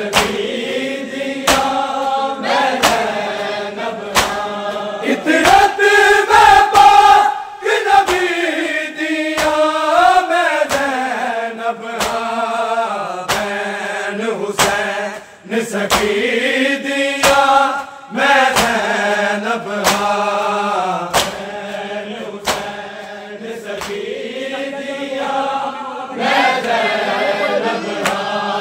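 Punjabi noha sung in chorus by a group of men, a slow lamenting melody, with the crowd's matam: open hands striking bare chests in a steady beat under the singing.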